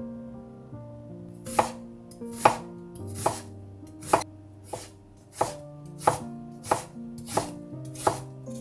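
Kitchen knife slicing an onion on a wooden cutting board: about ten even strokes, one every three-quarters of a second or so, starting about a second and a half in. Soft background music plays under it.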